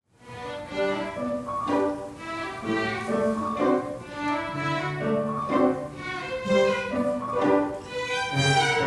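A string orchestra playing, violins carrying a melody in short phrases over sustained lower strings.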